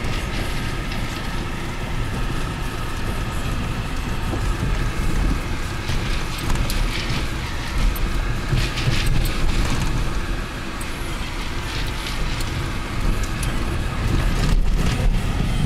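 Car driving slowly on a rough gravel road, heard from inside the cabin: a steady low rumble of tyres and engine, with scattered clicks and crackles from stones and rattling trim.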